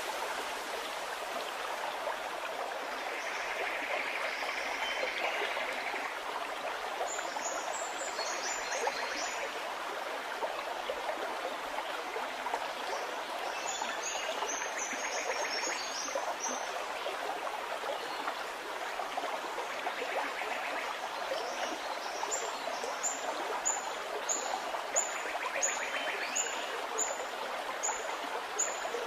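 A steady rushing hiss, with masking tape being peeled off a painted board in short crackling pulls every few seconds.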